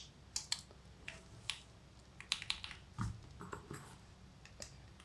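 Mechanical keyboard keys with Akko Lavender Purple tactile switches, lubed with 205g0, being pressed in a dozen or so light, irregular clicks. Each press is a short clack of the stem bottoming out, with no spring ping or scratchiness.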